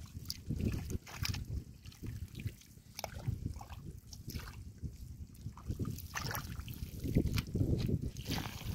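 Hands sloshing and squelching through shallow muddy water in uneven splashy strokes while groping in the mud for fish.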